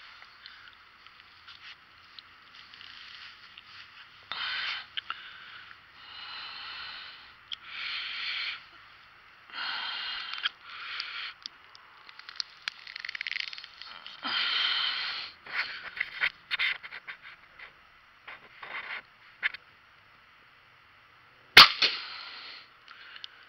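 Rustling and clicking handling noise close to a hat-mounted camera's microphone as an arrow is readied on a compound bow, then one sharp, loud snap near the end as the bowstring is released and the arrow is shot.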